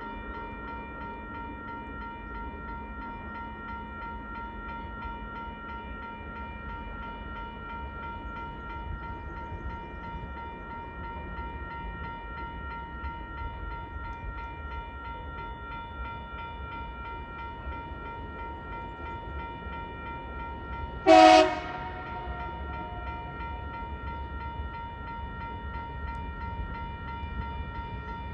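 Level crossing warning bell ringing steadily. About 21 seconds in, an approaching TasRail diesel locomotive gives one short, loud horn blast.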